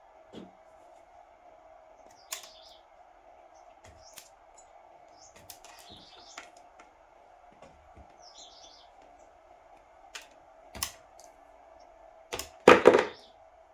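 A series of small clicks and taps, with a louder clattering knock near the end, over a steady faint hum, while birds chirp now and then.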